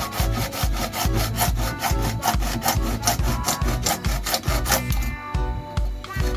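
A saw cutting holes into a pipe with fast, even back-and-forth strokes that stop about five seconds in, over background music with a steady beat.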